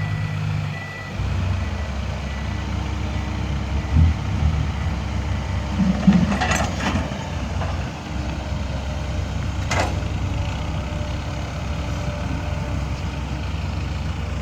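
Dump truck diesel engine running with a steady low rumble; its reversing beeper stops about a second in. A knock comes about four seconds in, and short bursts of noise follow around the middle.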